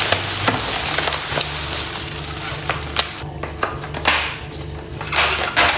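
Thin plastic bag crinkling and rustling as it is pulled open and a plastic takeaway food box is taken out, with a few light clicks of the box, and another short burst of crinkling near the end.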